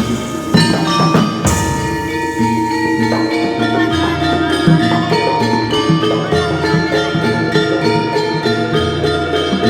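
Live Javanese jaranan ensemble music: gamelan-style struck metal mallet instruments play a steady, rhythmic melody over drums.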